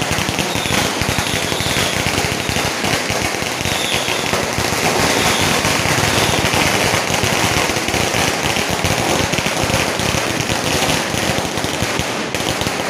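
A long string of firecrackers going off in a dense, unbroken crackle.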